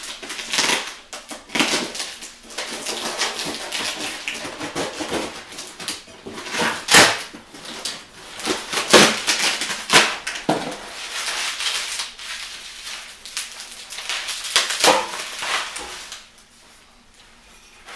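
Orange plastic bubble wrap crinkling and crackling as it is torn open and pulled off a chrome exhaust header, in uneven bursts with several sharp loud crackles; it dies down about two seconds before the end.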